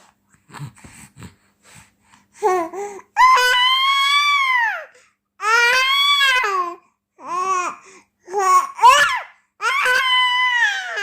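Six-month-old baby girl crying out in a series of long, high-pitched wails, each rising and then falling in pitch, after a couple of seconds of soft little sounds.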